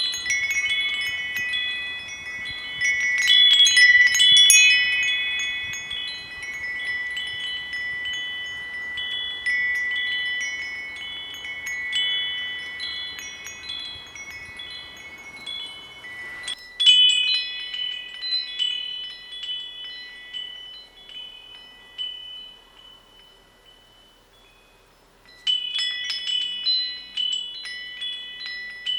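Nature's Melody 23 cm healing wind chime being swung, struck again and again and ringing with several high, sustained tones rich in overtones that overlap one another. The ringing fades almost away about three-quarters of the way through, then a fresh run of strikes starts it ringing again.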